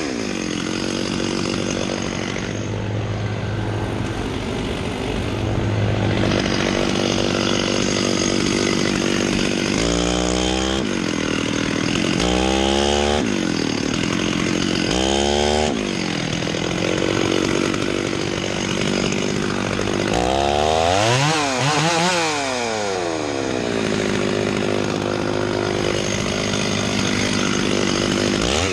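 Two-stroke chainsaw running at high revs while cutting the felling notch into the trunk of a red oak. The engine pitch dips and climbs back several times, around ten to sixteen seconds in and again past twenty seconds.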